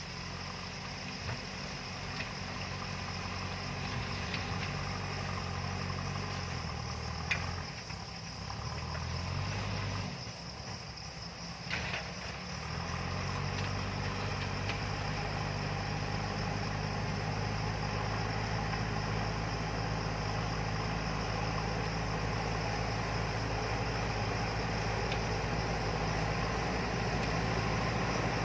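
JCB backhoe loader's diesel engine running, its pitch shifting as the machine works and dropping away briefly about ten seconds in before picking up again. Two short sharp knocks come through, one about seven seconds in and one near twelve.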